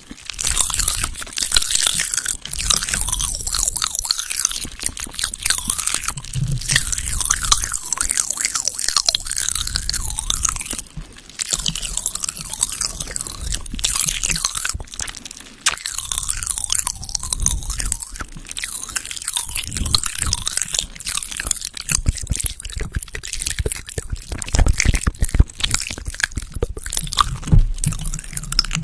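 Close-up crunching and chewing of a snack poured straight from its packet into the mouth, with brief pauses twice.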